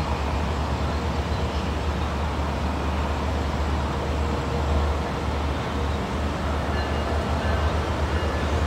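Diesel passenger train running through the station, a steady low engine rumble with wheel and rail noise.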